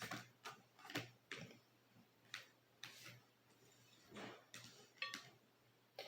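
Faint, irregular small clicks and taps, about a dozen scattered over a few seconds, with near silence between them.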